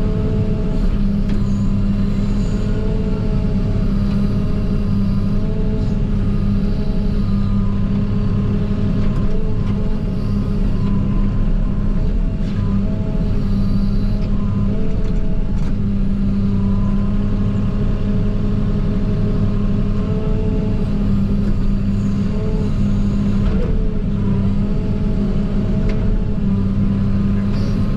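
JCB 48Z-1 mini excavator's diesel engine running steadily under working load, heard from inside the cab, with a whine that wavers in pitch as the machine works. A few faint knocks come through now and then.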